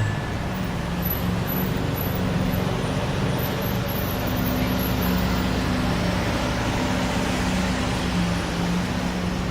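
Lamborghini Murciélago's V12 running at low, steady revs through a Capristo exhaust, a continuous low drone with no revving.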